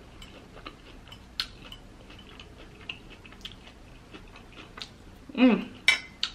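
Close-miked chewing with small wet mouth clicks, and light taps of a metal fork on a ceramic plate. About five seconds in, a short hummed "mm".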